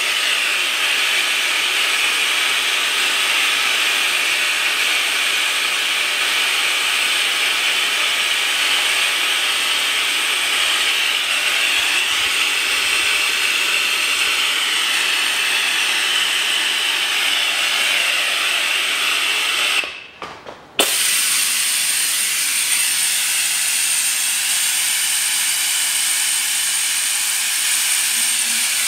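A suction pump hissing steadily as it draws power steering fluid out of the reservoir through a thin hose. It cuts out for about a second near the 20-second mark, then runs on.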